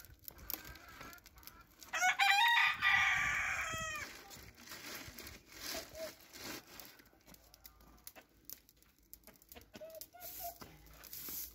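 A rooster crowing once, about two seconds in: one long call that holds its pitch and then fades away over about two seconds.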